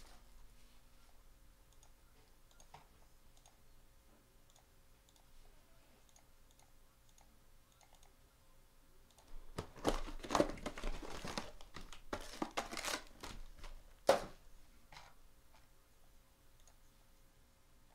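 A trading-card hobby box being torn open: wrapping crinkles and tears for a few seconds about halfway through, ending in one sharp snap. A faint, regular ticking sounds underneath.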